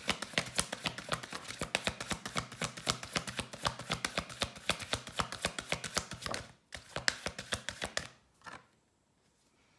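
A deck of tarot cards being shuffled by hand: a fast run of light card clicks that stops about six and a half seconds in, followed by a few single taps as the cards are settled.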